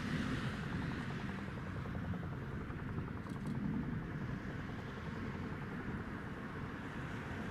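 Distant rumble of an approaching diesel-hauled train, Class 47 and Class 37 diesel locomotives, steady and low, with wind noise on the microphone.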